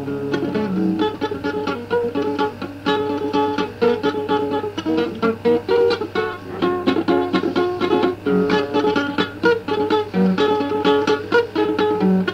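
Guitar playing a picked instrumental passage with quick successive notes, with no singing.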